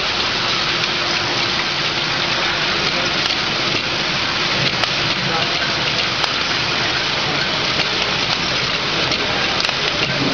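Bottle filling and capping machine for small 10–20 ml bottles running: a steady, dense clatter of many small bottles and caps rattling through the rotary capper and feed turntable.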